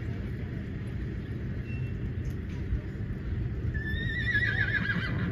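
A horse whinnying once near the end, a high quavering call lasting about a second, over steady low background noise.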